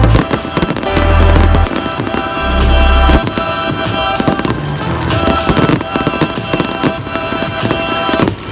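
Aerial fireworks bursting and crackling in quick, irregular succession. Music plays throughout, with heavy deep bass notes in the first three seconds.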